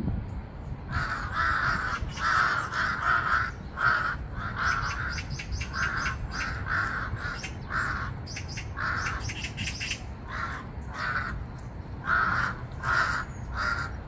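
Crows cawing over and over, a long run of harsh calls, some in quick succession, starting about a second in.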